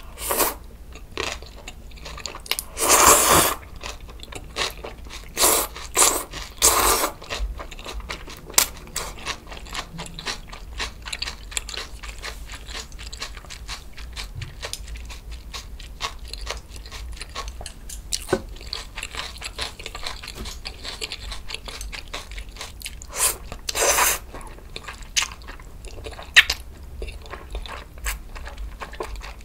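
Close-miked eating of kalguksu noodles and fresh napa-cabbage kimchi: steady wet chewing with crisp crunches, broken by loud slurps of the noodles right at the start, around three seconds in, a few seconds later twice, and again near the end.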